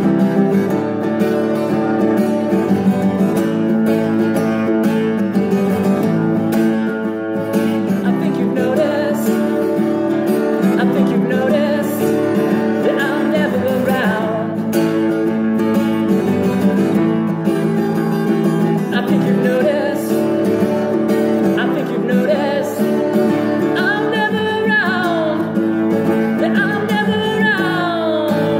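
A man singing while strumming chords on an acoustic guitar. Near the end, two sung notes slide down in pitch.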